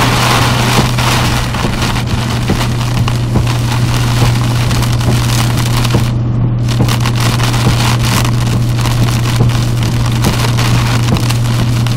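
Heavy rain pelting the windshield and roof of a vehicle driving on a wet highway, a dense crackling hiss over the steady low drone of engine and tyres. The rain hiss briefly drops out about six seconds in.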